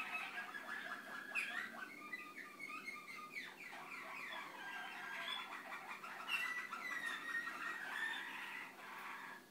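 Malinois (Waterslager) song canary singing a continuous song of rapid trills and held notes, with quick gliding notes between them.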